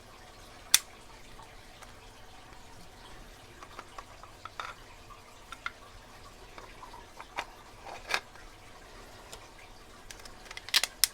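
Scattered small clicks and knocks of a tubular lock being handled and set into a lock holder: a sharp click about a second in, a few around eight seconds, and a quick run of clicks near the end.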